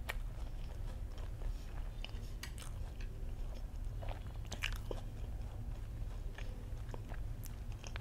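Mouth chewing a bite of batter-fried sausage coated in crispy potato cubes, with scattered soft crunches, over a steady low hum.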